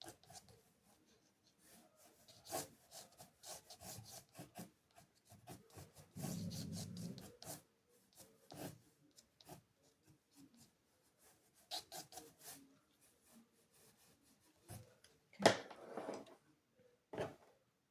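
An artist's tool scratching and rubbing across the painting surface in many short strokes, with one longer stroke, and a louder knock near the end.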